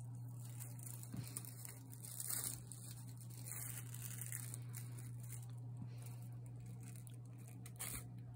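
Corrugated cardboard crinkling and tearing as a cat bites and paws at it, in short scraping bursts that are loudest about two seconds in, with a brief sharp knock near the end. A steady low hum runs underneath.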